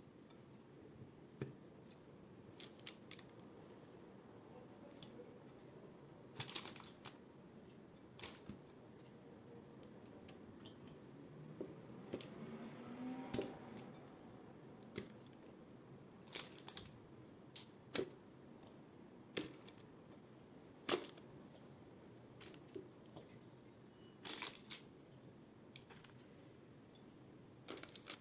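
Scattered sharp clicks and light knocks from kitchen handling, a dozen or so at irregular intervals, over a quiet room.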